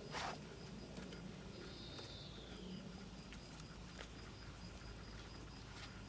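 Insects chirping steadily in the grass, a rapid pulsing high chirp over a thin high hiss. A brief rustle at the very start, and a single whistle falling in pitch about two seconds in.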